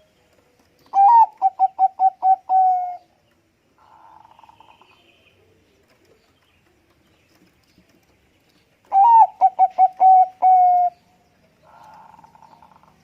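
Zebra dove (perkutut bangkok) cooing twice. Each song is a quick run of short notes ending in one drawn-out note, and a fainter, burry coo follows each.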